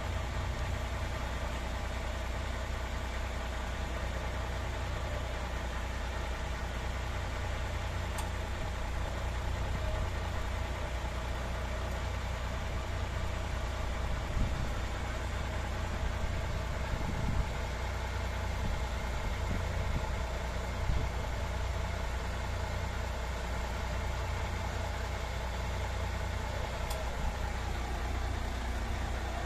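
Heavy diesel engine idling, a steady low drone that stays even throughout.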